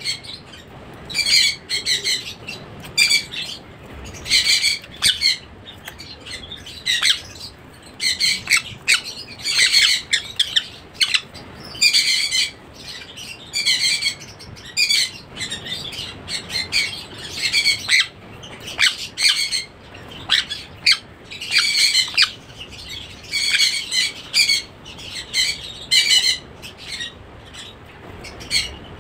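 Sun conure chick calling: short calls, one after another in runs of several, a call every half second or so.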